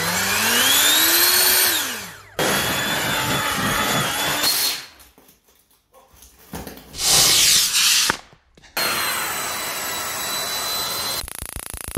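Electric ducted fans running in a string of short clips with sudden cuts between them: a fan whine rising in pitch as it spools up and then falling off, steady running, a short loud blast, and more steady running.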